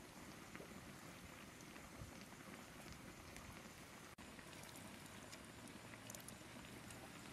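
Faint trickle of a thin stream of water pouring into a wooden mortar of pounded chili paste, with light splashing.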